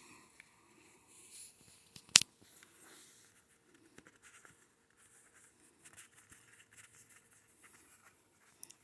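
Faint rustling and sliding of card stock as a pull-out paper greeting card is handled and drawn open, with one sharp click about two seconds in.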